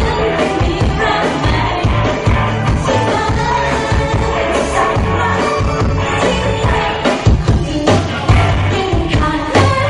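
A rock-pop song with a full band and a singing voice over a steady beat.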